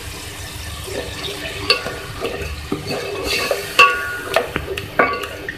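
Wooden spatula stirring and scraping a thick, oily masala in a metal pot, knocking against the pot at irregular intervals, the loudest knock about four seconds in, over a soft frying sizzle.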